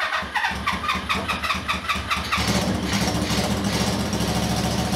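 Honda CB400 Four motorcycle engine being cranked on its electric starter for about two seconds, then catching and running steadily, starting for the first time in 21 years.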